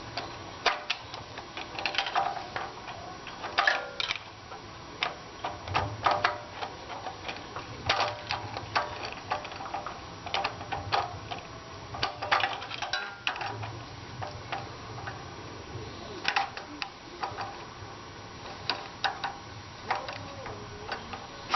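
Irregular metallic clicks, taps and clinks of hand tools and small parts while the carburetor is worked off a Case 222 garden tractor's engine.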